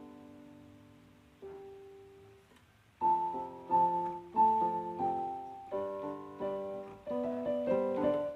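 Background piano music: a few slow, fading notes, then a livelier melody with chords from about three seconds in.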